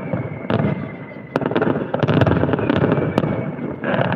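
Fireworks display: a dense barrage of aerial shells bursting, with sharp bangs over continuous crackling. It eases briefly about a second in, then builds back up.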